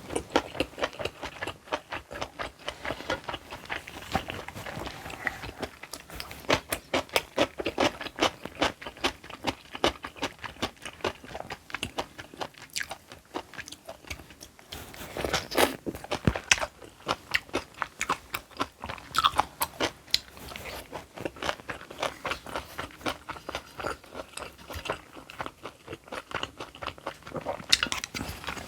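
Close-miked eating: steady chewing with many rapid, wet crunches, as of crisp kimchi and food being bitten and chewed. The crunching comes in louder clusters about halfway through and again near the end.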